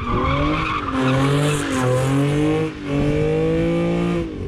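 Car spinning donuts: the engine is held at high revs while the rear tyres squeal and skid on the asphalt. The sound dips briefly a little after the middle as the throttle eases, then comes back.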